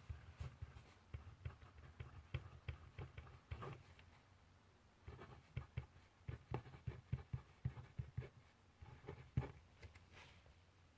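Pencil writing on paper in quick, irregular short strokes, with a brief pause about four seconds in and the writing stopping near the end.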